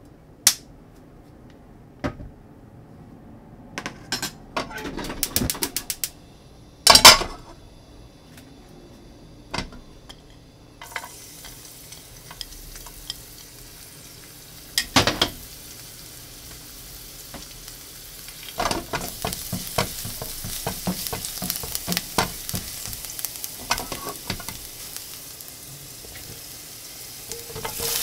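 A few clicks and knocks of utensils on the pan, then minced garlic sizzling and crackling in hot oil in a nonstick frying pan. The frying starts a little past halfway and keeps crackling busily, and it gets louder right at the end as cut okra is dropped in.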